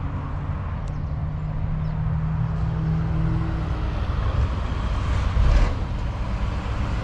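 Road traffic on a highway: a lorry's engine hums steadily for the first few seconds, and a louder rushing swell comes about five seconds in.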